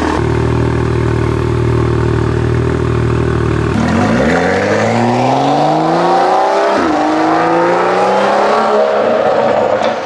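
BMW 435i's N55 turbocharged straight-six, warm, idling steadily through an Akrapovic Evolution exhaust with an HJS downpipe. About four seconds in, the car accelerates away hard, engine pitch rising, dipping briefly at an upshift near seven seconds, then rising again.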